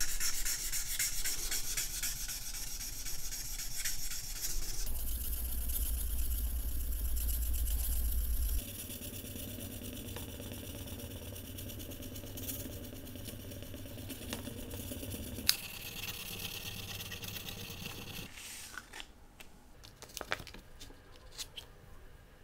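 Bare brass watch case, its chrome plating stripped, being sanded by hand with abrasive paper: a dense, fast scratchy rubbing, louder in the first part and softer after about eight seconds. A few light clicks and taps follow near the end.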